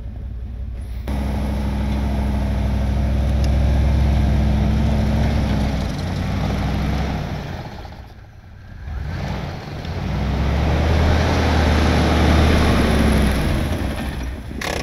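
Engine of a Jeep Grand Cherokee on rubber snow tracks running as it drives and manoeuvres over snow, its pitch rising and falling with the throttle. It starts about a second in and drops away briefly about eight seconds in before running strongly again.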